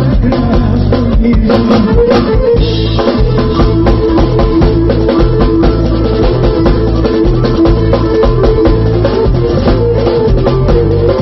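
Live amplified Pontic folk music: a Pontic lyra bowed over a drum kit that keeps a steady, driving beat.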